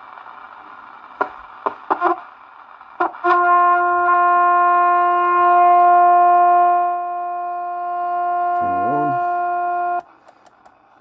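A Cobra 29 WX NW ST CB radio's speaker gives receiver hiss and a few clicks, then a loud, steady, buzzy test tone: the RF signal generator's modulated signal being picked up, a sign the receiver is working. The tone cuts off abruptly near the end as the channel is switched.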